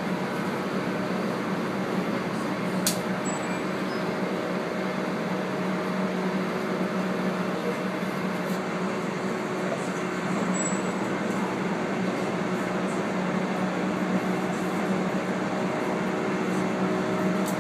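Steady running noise of a moving train heard from inside the carriage, picked up through the phone pressed against the door glass, with a low hum and two brief clicks, one about three seconds in and one about ten seconds in.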